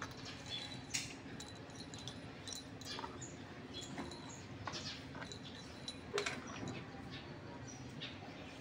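Faint high chirps, likely birds, scattered over a steady low hum, with a few sharp small clicks. The sharpest clicks come about a second in and again about six seconds in.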